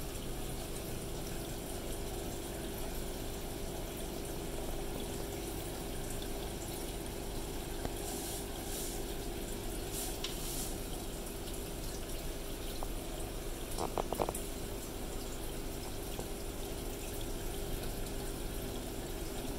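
Aquarium air stone and filter running: steady bubbling and trickling water over a low, steady pump hum, with a few light clicks about two-thirds of the way through.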